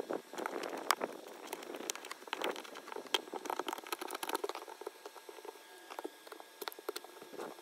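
Utility knife blade scraping old silicone sealant off a metal stove-flue flashing around its screws: irregular scratching with many small clicks.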